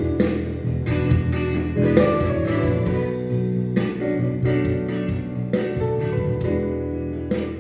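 Instrumental ending of a slow blues ballad, guitar notes picked over a steady bass line, slowly getting quieter.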